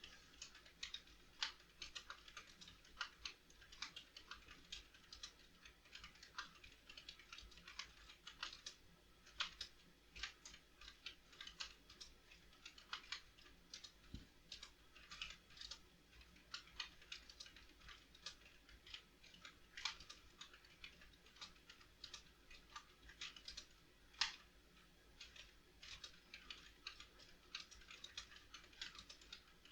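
Computer keyboard being touch-typed quickly, a faint, irregular run of key clicks, several a second.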